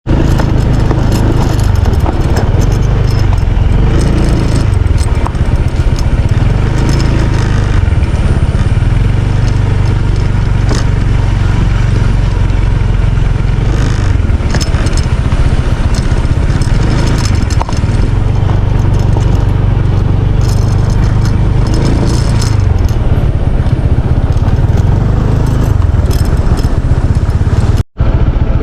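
Engine running loud and close, its pitch repeatedly rising and falling as it speeds up and slows down. The sound cuts out for an instant about a second before the end.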